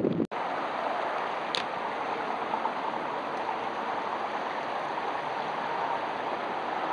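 Steady rush of running water, with one brief faint tick about a second and a half in.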